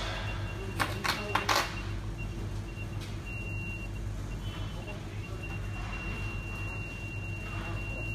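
A few short, sharp crackles about a second in, from a cardboard display header card and its tape being handled, over a steady low hum and a thin, steady high-pitched tone.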